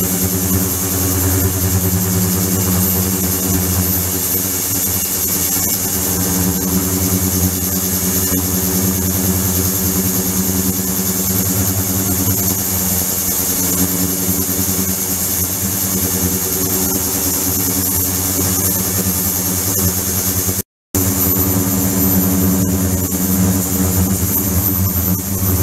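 Ultrasonic cleaning tank running with water flowing through it: a steady electrical hum with a high hiss. The sound drops out for a moment about 21 seconds in, then carries on unchanged.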